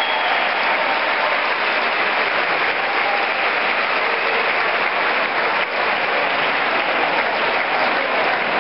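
A large crowd applauding steadily, a dense, even clapping with no break.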